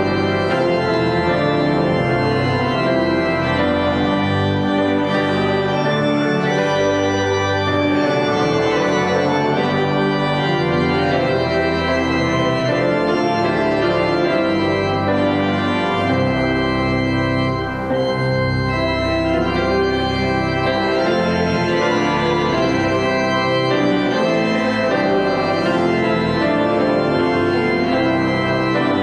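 Church organ playing held chords, changing every second or two, at a steady loud level.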